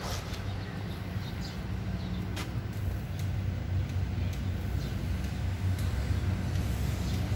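Steady low outdoor rumble with a few faint scattered clicks, growing slightly louder toward the end.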